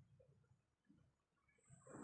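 Sleeping dog snoring softly: one snore fades out at the start and the next begins to swell near the end.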